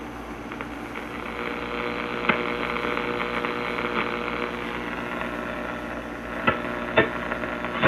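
A 1937 Philco 37-610 tube radio's speaker hissing and humming between stations as the tuning knob is turned, with a few sharp crackles, twice near the end.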